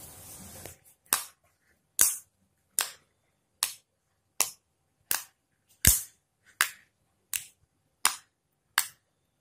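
Homemade shampoo-and-toothpaste slime popping as fingertips poke into it: about eleven sharp pops, roughly one every three-quarters of a second.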